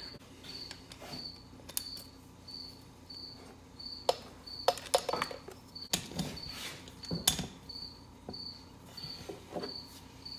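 A cricket chirping steadily, one short high chirp roughly every two-thirds of a second, with scattered sharp metal clicks and knocks from hand tools working on the motorcycle engine case; the knocks are the loudest sounds.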